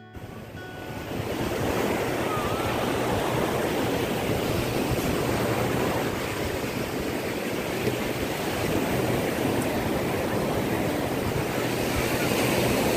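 Sea surf breaking and washing up a sandy beach, a steady rushing wash, with wind blowing on the microphone. It builds over the first second, then holds steady.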